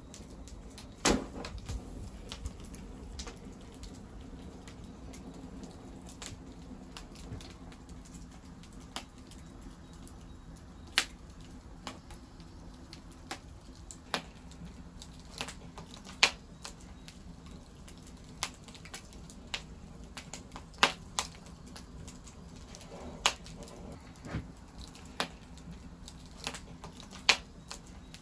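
Split-log wood fire crackling in a steel drum fire pit: sharp, irregular pops and snaps, about one a second, over a low steady rush of flame.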